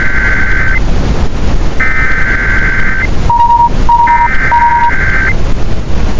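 Emergency Alert System digital header for a tornado warning: three raspy data bursts, each just over a second long with about a second between, with three short beeps about three seconds in, over a steady loud rushing noise.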